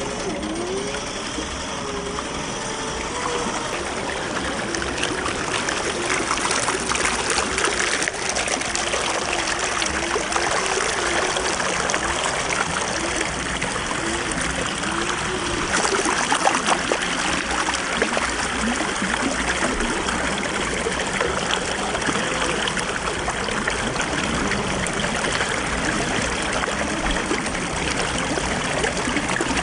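A stream running steadily. Under it a faint whine rises and falls in pitch, from the RC crawler's 45-turn 540 brushed motor and gears working under throttle.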